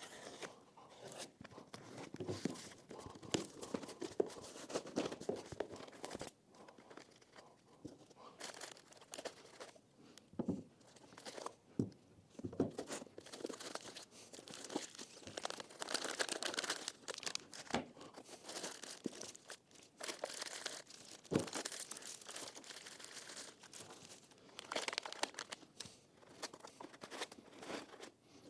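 Unboxing: packing tape on a cardboard box slit with a utility knife, then irregular tearing, rustling and crinkling of cardboard, foam and plastic wrapping as parts are lifted out. A few sharp knocks come as parts are set down on the wooden bench.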